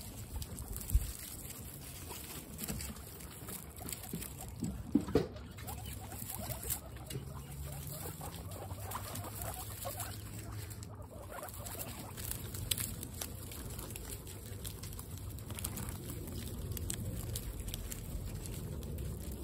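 Several guinea pigs shuffling through straw and sniffing right at the microphone, a dense patter of rustling and small clicks with a few sharper knocks.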